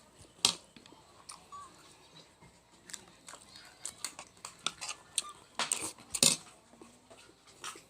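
Eating sounds from someone working through leftover chicken bones: scattered small clicks and smacks, with the loudest at about half a second in and a cluster around six seconds.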